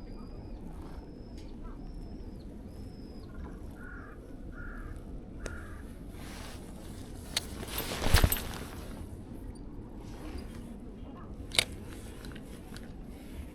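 Birds calling: four short high calls, then three lower, harsher calls. About eight seconds in comes a brief swell of noise topped by a sharp click, the loudest thing here, and another click a few seconds later.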